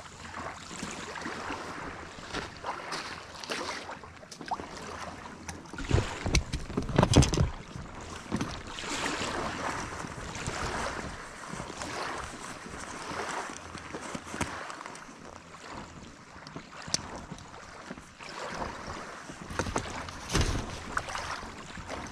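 Lake water sloshing and lapping against an inflatable Alpacka Mule packraft's hull, in uneven swells every second or so. Wind buffets the microphone, strongest about six seconds in and again near the end.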